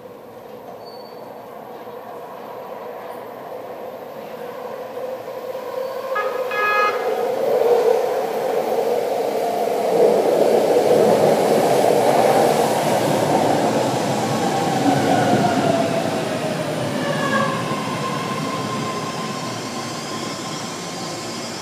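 A BART subway train arriving through the tunnel into an underground station. It builds to a loud rumble, with a short horn-like tone about six seconds in. As it slows along the platform, a whine falls in pitch and the brakes squeal near the end.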